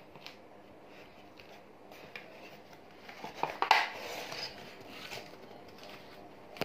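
Cardboard shipping box being opened by hand: the lid and flaps scrape and rustle, loudest about midway as the lid is pulled up and back.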